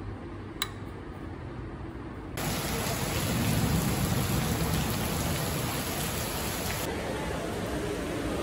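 Heavy rain pouring onto paving, a loud, even hiss that starts abruptly about two seconds in; near the end the high hiss softens. Before the rain, a quiet stretch with a single click.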